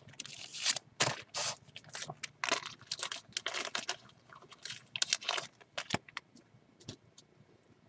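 Quick irregular rustling, scraping and clicking handling noises, busy for about five and a half seconds, then a few scattered ticks.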